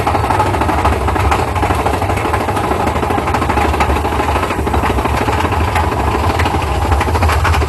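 Mine-train roller coaster running along its track, a steady loud rumble with a constant fine rattle from the wheels and cars.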